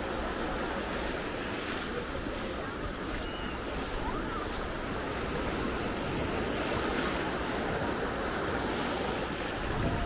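Surf washing onto a sandy beach: a steady, even rush of waves.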